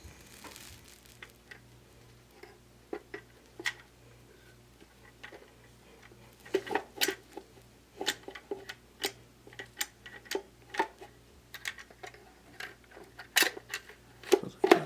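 Plastic parts of a Dyson DC29 vacuum's cyclone assembly clicking and knocking as they are handled and worked into line around a spring and connecting rod. Scattered sharp clicks at first, coming more often from about six seconds in, with the loudest knocks near the end.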